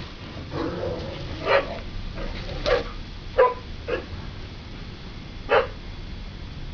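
A dog barking in play, about six short barks at uneven gaps, the loudest a little past halfway.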